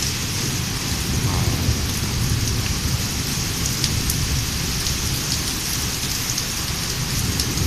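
Heavy rain pouring down steadily, a dense hiss with small drop ticks and a constant low rumble underneath.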